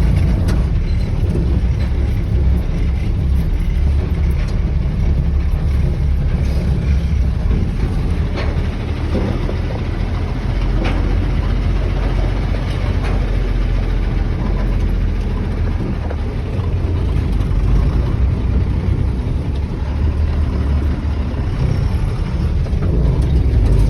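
A motor vehicle being driven: a steady low engine and road rumble with scattered light knocks and rattles.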